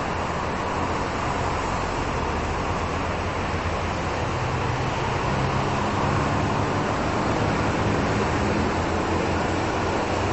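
620 Class diesel railcar set approaching from a distance, its engine hum growing slowly louder about halfway through over a steady background noise.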